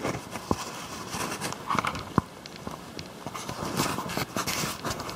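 Handling noise from a camera held close over a plastic terrarium tub: scattered small clicks and soft rustles, with one sharper click a little past two seconds in.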